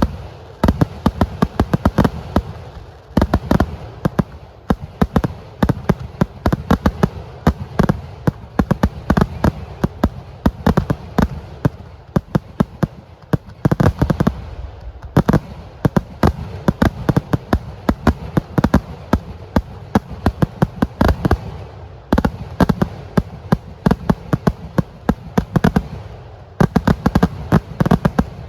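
Festival fireworks going off in a dense, unbroken barrage of loud firecracker bangs, many each second. The barrage thins briefly about halfway through and again near the end.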